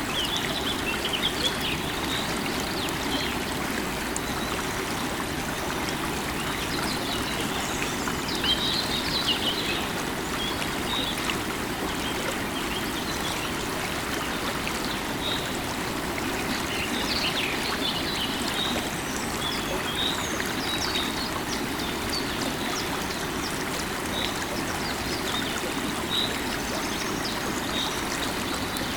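River water running steadily, with birds chirping over it in scattered short calls, busiest a second or two in, around eight to ten seconds and around seventeen seconds.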